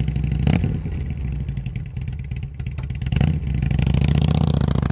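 Harley-Davidson motorcycle engine running with a rapid throb, revving up and getting louder about three seconds in.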